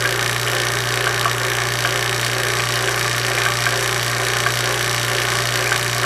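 HVAC vacuum pump running steadily, a constant hum with a hiss over it, as it pulls a deep vacuum on a micron gauge down to around 100 microns. The fast pull-down is a sign the pump is in good shape.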